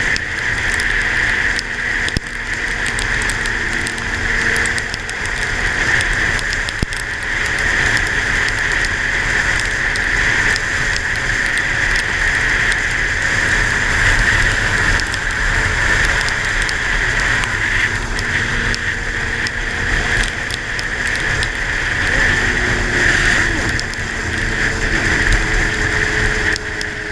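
Steady wind and wet-road noise from a vehicle riding in the rain, with scattered raindrop taps on the microphone and a faint engine hum underneath.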